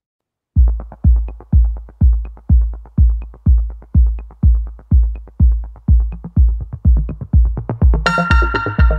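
Background electronic music: a steady deep kick-drum beat, about two beats a second, starts about half a second in, and a synth line joins near the end.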